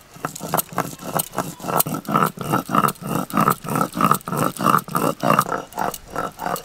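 Hand-held grinding stone (nora) rubbed back and forth on a stone slab (sil), grinding coriander leaves into chutney paste: an even, rhythmic stone-on-stone scraping, about three strokes a second.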